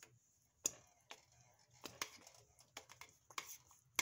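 Spoon stirring thick grits in a stainless steel pot, the spoon scraping and clicking against the pot's sides and bottom at irregular moments, the sharpest click about two-thirds of a second in.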